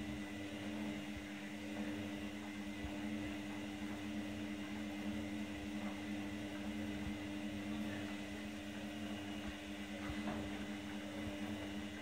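Candy GrandO front-loading washing machine tumbling a load of wet towels, its drum motor running with a steady, even hum.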